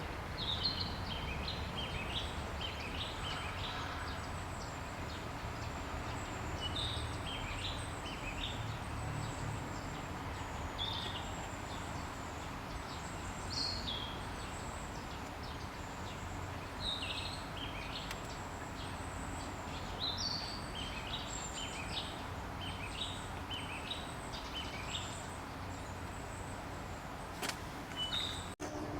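Wild birds calling outdoors: clusters of short, high chirping notes every few seconds, with fainter thin, very high notes in between, over a steady low background rumble.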